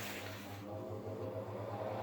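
Electric fan motor spinning up after being switched on: a steady low hum with a whir that slowly grows louder.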